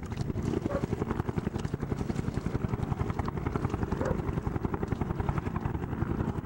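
Bell Huey-type helicopter with a two-blade main rotor flying low overhead, its rotor giving a fast, steady chopping beat with the turbine's noise under it.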